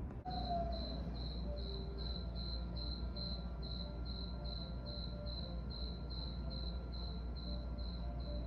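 Cricket chirping steadily, a high chirp repeating a little over twice a second, over a low steady hum.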